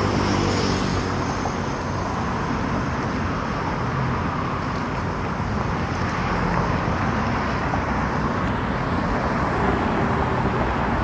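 Steady road traffic noise of cars and other vehicles passing on a busy city road.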